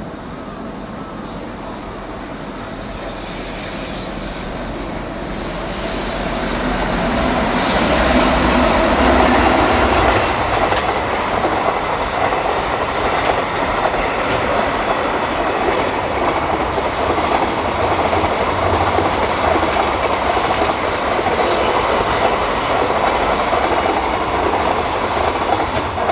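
EH500 electric freight locomotive approaching and passing, followed by a long run of container flatcars running past on the rails. The sound builds over the first several seconds, is loudest about eight to ten seconds in as the locomotive goes by, holds steady while the wagons pass, and drops away at the very end as the train clears.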